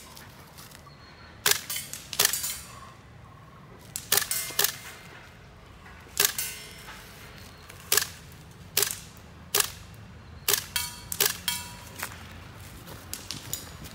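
GHK M4 gas-blowback airsoft rifle, fitted with a GBL short bolt, firing single shots: about a dozen sharp cracks at irregular spacing, with a quicker string of shots about 11 seconds in. A brief ringing tone follows a few of the shots.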